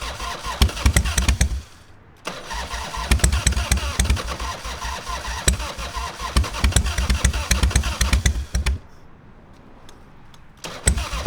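Electric starter cranking a Harley-Davidson Evo 1340 V-twin in long runs with short pauses between, the engine not catching. The owners suspect it is flooded after winter storage, and it is being cranked on jumper cables.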